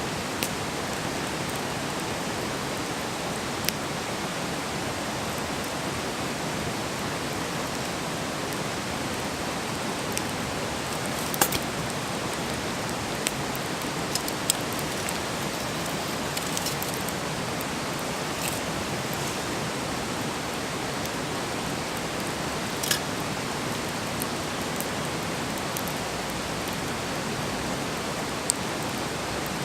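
Campfire burning with a steady hiss, broken by scattered sharp crackles and pops from the burning wood, the loudest about a third of the way in and again past the middle.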